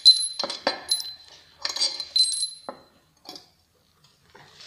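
Steel bolts and tools clinking against the aluminium inlet manifold and cylinder head as the manifold is unbolted: sharp metallic clinks with a short bright ring, several close together in the first two and a half seconds, then one or two fainter ones.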